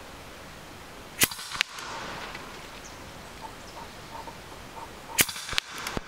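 Two shots from an EDgun Leshiy 2 PCP air rifle in .25 calibre, about four seconds apart. Each is a sharp crack followed by a fainter second crack a third of a second later.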